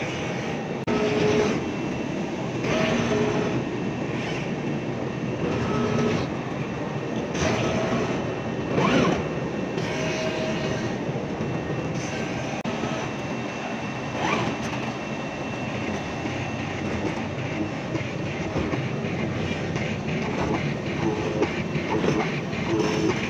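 CNC oscillating knife cutting machine running while it cuts and grooves a polyester fiber acoustic panel: a steady mechanical noise that swells every few seconds as the tool head moves, with short motor whines starting and stopping.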